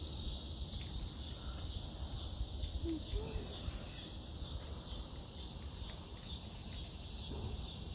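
Steady outdoor insect chorus, a continuous high buzz, with a low rumble underneath.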